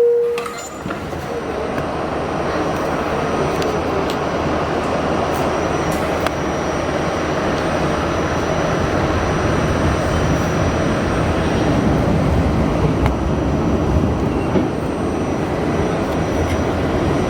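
R68A subway car running along the track, heard from inside the car: a steady rumble and rattle of wheels on the rails. The sound dips briefly just under a second in, then holds steady.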